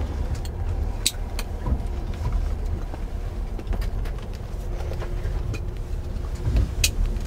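Long-distance sleeper train running: a steady low rumble with scattered sharp clicks and knocks.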